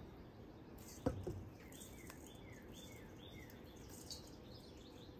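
Faint background with a bird chirping a run of short, falling notes through the middle, and one light tap about a second in.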